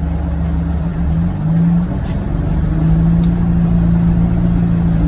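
A John Deere Gator UVX 835M utility vehicle's engine running while the vehicle plows snow. Its pitch rises about a second in and then holds steady.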